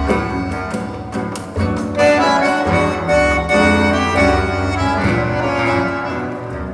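Recorded music played over a hi-fi loudspeaker system: sustained chords over a steady bass line, easing off slightly near the end.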